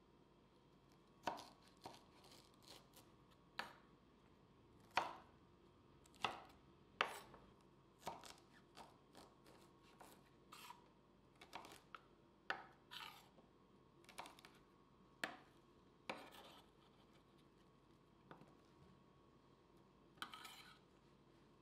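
Kitchen knife cutting baby corn on a wooden cutting board: irregular sharp taps of the blade meeting the board, with a few longer scraping slices.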